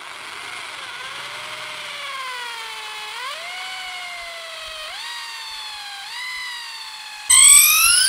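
Electric drill with an 8 mm bit boring out the centre of a dry elder stick, its motor run gently on the trigger so the whine sags and rises in pitch. About seven seconds in it jumps to full speed, suddenly louder and higher.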